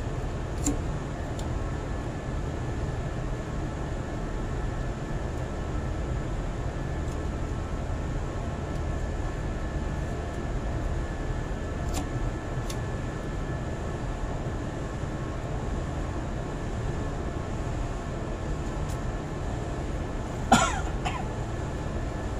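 A running engine: a steady low rumble with a faint steady whine above it. A few light clicks come through it, and a short sharp sound about 20 seconds in is the loudest moment.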